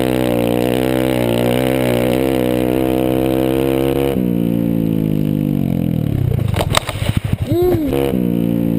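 Honda CRF150F dirt bike's four-stroke single-cylinder engine running under throttle, then the throttle is closed about four seconds in and the engine note falls as the bike slows. Near the end come several sharp knocks and a quick rise and fall in engine pitch.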